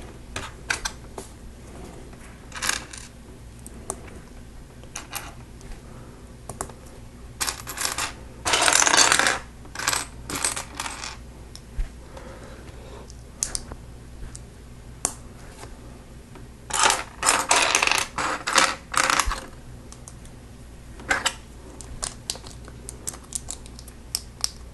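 Small plastic Lego pieces clicking and clattering as they are handled, picked through and pressed together. There are scattered single clicks, and two denser runs of rattling: one about a third of the way in and a longer one past two-thirds.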